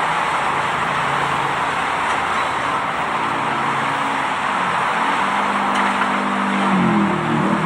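Heavy diesel engine of large earthmoving machinery running under load, a steady roar whose pitch rises slightly near the end as it revs up.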